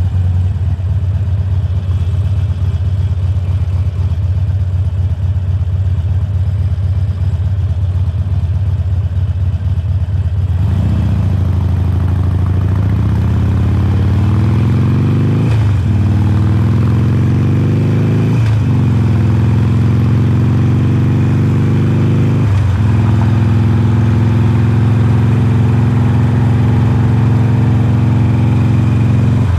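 Harley-Davidson Forty-Eight's air-cooled 1200 cc V-twin through Khrome Werks slip-on mufflers, idling steadily for about ten seconds. It then pulls away, the exhaust note rising through three upshifts, each a sudden drop in pitch followed by another climb, and settles into a steady cruise for the last few seconds.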